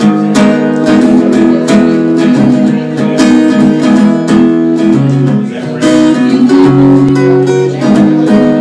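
Acoustic guitar strummed in a steady rhythm, its chords ringing and changing every few seconds, with no singing over it.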